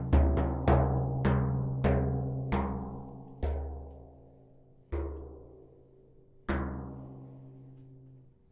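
A deep, pitched drum struck about eight times. The beats slow steadily from under a second apart to about a second and a half apart, and each beat rings on. The last beat fades away to near quiet.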